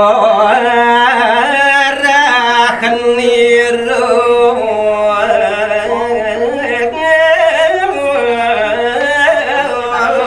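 A man singing a line of Balinese geguritan verse solo and unaccompanied to a pupuh Sinom melody. The voice moves slowly through long held notes, ornamented with wavering, sliding pitch.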